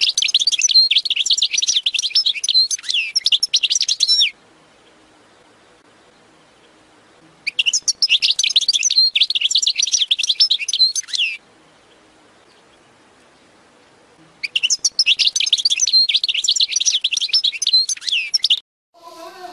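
European goldfinch singing: three bouts of rapid, high twittering song of about four seconds each, with pauses of about three seconds between them.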